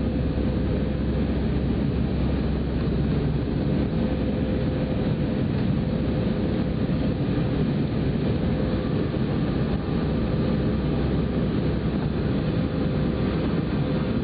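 Steady roar of a jet airliner's engines and rushing air, heard inside the cabin during the climb after takeoff, with a faint steady hum running through it.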